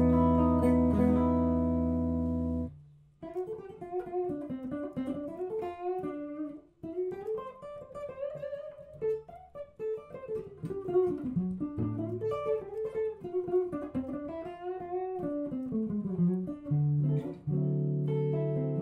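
Soviet Elgava Unica-2 electric guitar being played: a chord left ringing and dying away, cut off about three seconds in, then a run of quickly picked single notes in rising and falling arpeggios, and another ringing chord near the end.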